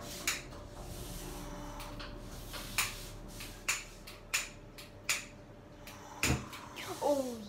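A long-nosed utility lighter clicking again and again at a gas hob burner, sharp clicks a second or so apart, as it is sparked to light the gas. Near the end there is a low knock and a brief wavering squeak.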